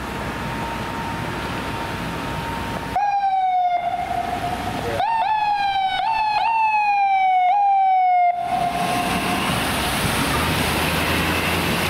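FDNY ambulance's electronic siren. It gives one falling wail about three seconds in, then from about five seconds a run of sharp rises each followed by a slow fall. It cuts off at about eight and a half seconds, leaving steady traffic noise.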